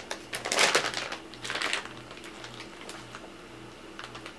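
Clear plastic packaging around a wax melt crinkling as it is handled, loudest in the first two seconds, with a few light clicks near the end.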